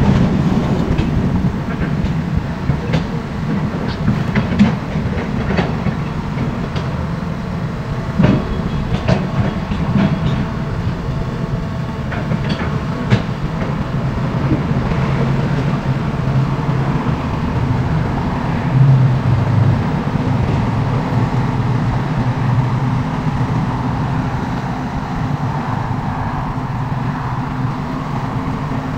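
SANY excavator's diesel engine running steadily as it digs, with scattered knocks and clanks of rock and soil in the bucket through the first half and the engine swelling briefly a little past the middle.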